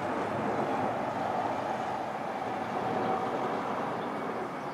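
Electric multiple-unit passenger train running away down the line, a steady running noise with a held whine through the middle that eases near the end.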